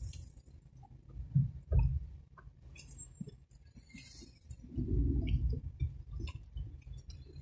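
Noise inside a car driving in the rain: irregular surges of low rumble, with scattered light taps and clinks in between.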